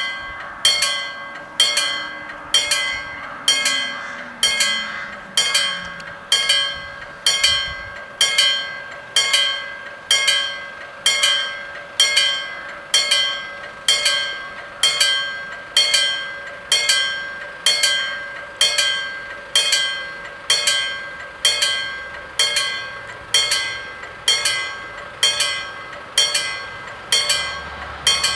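Level-crossing warning bell striking steadily, about three strikes every two seconds, each stroke ringing on briefly: the crossing is closed for an approaching train.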